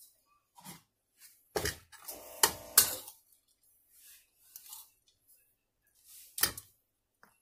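Metal spoon scraping and clinking against a ceramic bowl while scooping crumbly filling into a dough cone. A cluster of sharp knocks comes between about one and a half and three seconds in, the last of them the loudest, and one more comes near the end.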